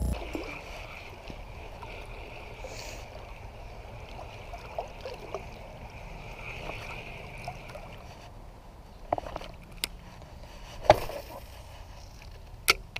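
Water sloshing and trickling around a wader in a shallow creek, with a steady high hiss in the background. Near the end come a few sharp clicks from handling a spinning reel during a cast, the loudest about two seconds before the end.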